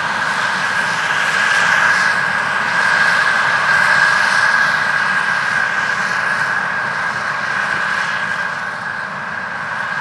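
New Holland combine harvester running while harvesting corn: a continuous machine noise with a steady high whine held throughout. It is loudest a few seconds in, then eases a little as the machine moves away.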